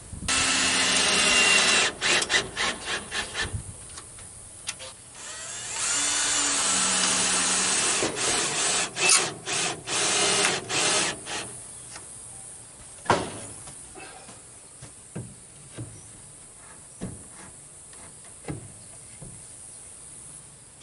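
Power drill working wood: two runs of about two seconds each, each followed by a string of short trigger bursts, then a few scattered light knocks.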